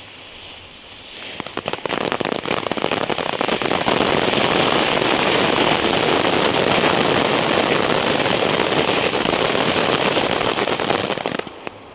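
Small F1 ground fountains from a Leslie 'Alien Class' fountain set, spraying sparks with a hiss and dense crackling. The crackle builds about a second and a half in, stays loud, and dies away near the end.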